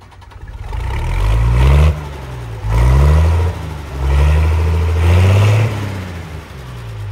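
An engine revved up three times, its pitch climbing and dropping back after each burst. The third rev is held the longest.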